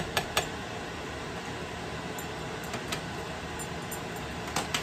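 Stainless steel pot lid clinking against the pot a few times, sharp metal ticks near the start, around three seconds in and again near the end, over a steady background hiss.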